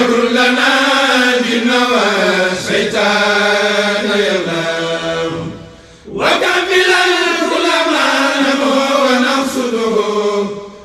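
Senegalese kourel chorus chanting an Arabic khassida in unison. One verse trails off about five seconds in, and after a short pause the next verse begins.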